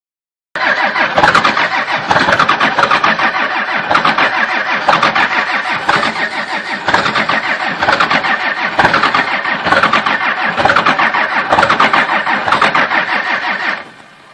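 A loud engine starting and running rough, with a heavier beat about once a second. It comes in abruptly about half a second in and cuts off near the end.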